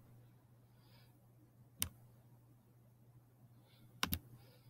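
Computer clicks while text is selected and highlighted in a document: one sharp click about two seconds in, then a quick double click about four seconds in, over faint room hum.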